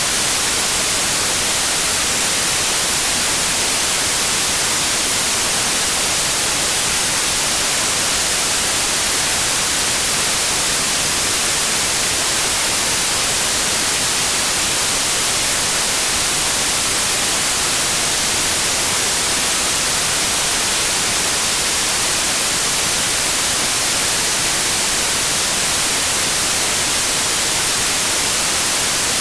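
Synthetic white noise: a steady, unchanging hiss, strongest in the treble.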